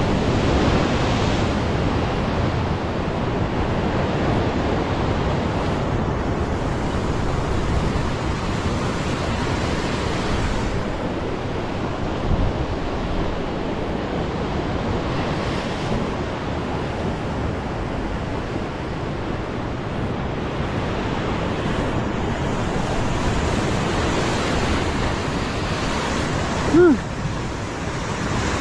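Ocean surf surging and washing over a rock ledge, with wind buffeting the microphone. Near the end comes one brief squeak that rises and falls in pitch.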